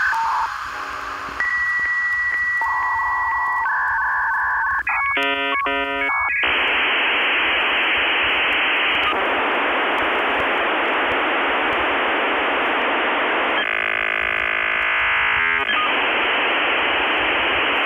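Electronic soundtrack passage: a few steady beeping tones and a quick run of stepped tones, then a long stretch of radio-like static hiss.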